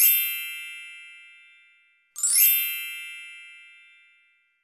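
Two bright chime sound effects, each a quick upward shimmer into a ringing ding that fades out over about two seconds; the second comes about two seconds after the first.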